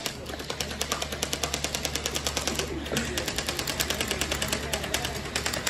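Electric gel-ball (splatter ball) blaster firing on full auto: a rapid, even stream of snapping shots at about ten a second, pausing briefly about three seconds in before firing on.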